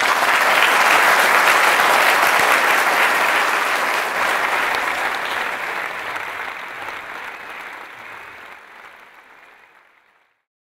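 Audience applauding, loudest at the start and then dying away steadily to nothing near the end.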